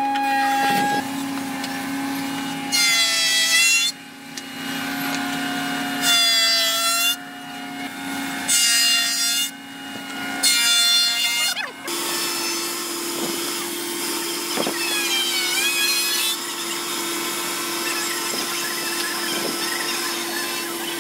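Electric wood planer running with a steady hum, cutting a wooden disc four times, each pass a louder, harsher burst of about a second. About twelve seconds in, the sound changes to a wood lathe motor running steadily while the spinning wooden disc is worked by hand.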